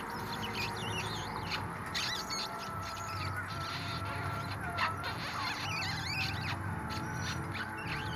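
Free-improvised ensemble music, with trumpet and bowed cello, over recorded city soundscape. Scattered, high, wiggling chirp-like squeaks sound over a low hum, and a held tone enters about two and a half seconds in.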